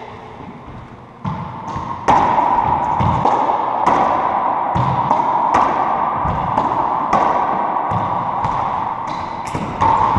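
Racquetball rally: a rubber ball cracking off racquets, walls and floor about once a second, echoing around the enclosed court. The hits start about two seconds in, over a steady tone that runs underneath.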